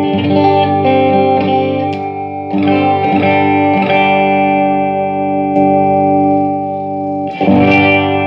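Electric guitar played through a Laney IRT30 amp: strummed chords left to ring, struck again about two and a half seconds in, twice more shortly after, and once near the end. It is a sound test after the effects-loop attenuation switch was replaced to cure a sound-cutting-off fault, and the sound holds without cutting out.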